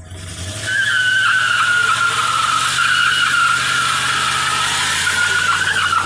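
A vehicle's tyres squealing in one long, steady screech during a burnout, with the engine running underneath.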